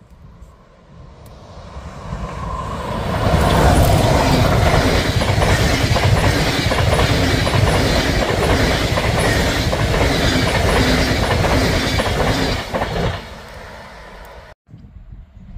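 Passenger train of SBB EuroCity coaches hauled by an electric locomotive, approaching and passing close by at speed. The noise builds over the first few seconds into a steady rush of wheels on rail with a regular clatter of wheel beats, then falls away as the train recedes, cutting off abruptly near the end.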